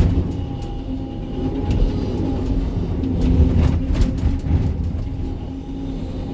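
Sany 305 crawler excavator's diesel engine running steadily under working load, heard from the operator's cab, with a few knocks and clanks of the bucket working rock about two and four seconds in.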